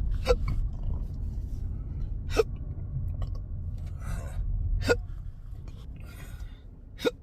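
A man's intractable hiccups: four sharp hics, one about every two and a half seconds.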